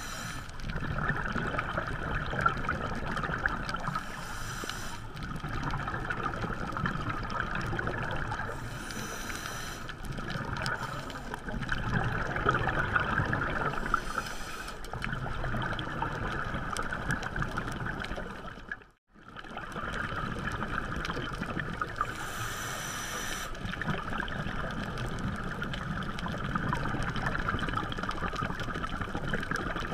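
Underwater sound through a dive camera's housing: a steady watery rush, with hissing, gurgling bursts of a scuba diver's exhaled bubbles every four or five seconds. The sound cuts out for a moment about two-thirds of the way through.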